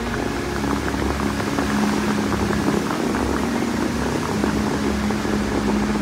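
Musical fountain's water jets shooting up and falling back into the lake: a steady rushing, hissing spray, with a low held note from the show's music underneath.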